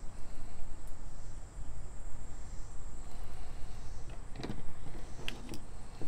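Steady low background rumble, with a few light clicks and taps near the end as multi-tool pocket knives with their tools opened out are handled and set down on a wooden table.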